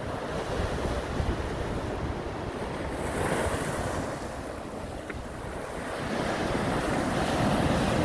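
Small sea waves breaking and washing up a coarse sand and gravel beach, with wind buffeting the microphone. The surf swells about three seconds in and again, louder, near the end.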